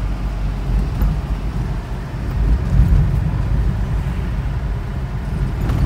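Steady low rumble of a Mitsubishi Jolie minivan driving on a road, heard from inside the cabin: engine and road noise while under way.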